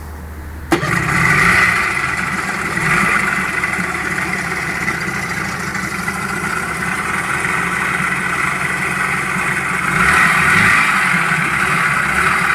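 1994 Suzuki 9.9 hp two-stroke outboard motor starting under a second in, then running steadily, picking up speed briefly a few times.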